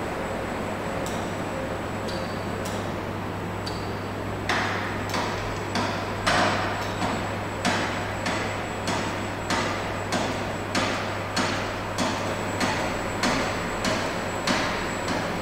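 Kinetic sculpture mechanism of chain, half sprocket and banded stone on a wooden beam, knocking in a steady rhythm about three times every two seconds from about four seconds in, over a constant low hum.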